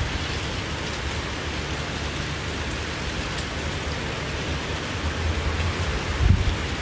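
Steady hiss of rain falling, with a low rumble underneath and one brief dull bump about six seconds in.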